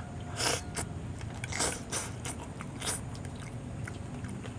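A person eating: chewing sounds, with three short noisy mouth sounds about a second apart.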